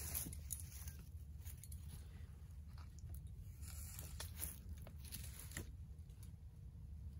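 Faint rustling and scattered small clicks of a tree saddle's tether rope and harness being handled, as the rope is passed around the trunk and adjusted at the waist.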